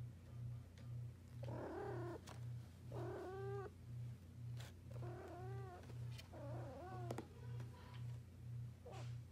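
Tabby cat meowing close up: four drawn-out meows about a second apart, then a short one near the end, over a low hum that pulses about twice a second.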